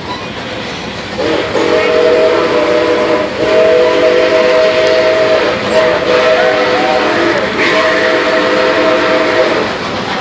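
Steam whistle of Nickel Plate Road 765, a 2-8-4 Berkshire steam locomotive, blown in four long blasts at a steady pitch, heard from a coach vestibule over the rumble and clatter of the moving train.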